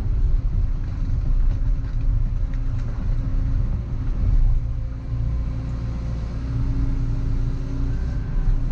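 Volvo EC140EL tracked excavator's diesel engine running steadily under working load as the machine clears brush and wood, a constant low drone with a steady hum above it.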